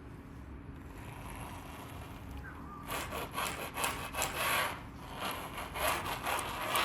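Scratchy rubbing and scraping in an irregular run of strokes, starting about three seconds in.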